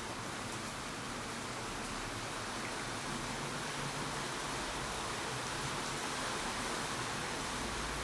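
Steady rain falling, a dense even hiss with no individual drops standing out.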